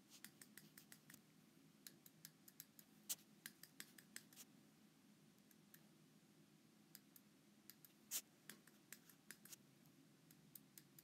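Faint, irregular taps and clicks of hand-drawing on an iPad touchscreen as tally marks are written and numbers struck out, over a faint steady low hum.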